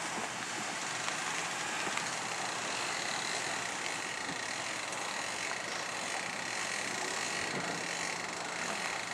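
Minivan running as it tows a boat trailer with a 20 ft boat up out of the water, under a steady hiss.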